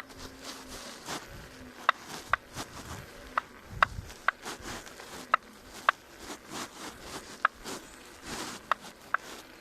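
Kingsong S22 electric unicycle's hub motor knocking: a dozen or so sharp, ringing knocks at uneven intervals. The knocking is a fault in a newly replaced motor.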